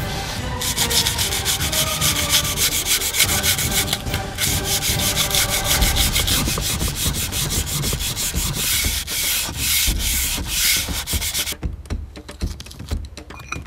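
Coarse sandpaper on a hand-held sanding pad is rubbed rapidly back and forth along the edge of an epoxy resin and wood diorama base, giving a dense, continuous scraping. It eases off to fainter, sparser strokes near the end.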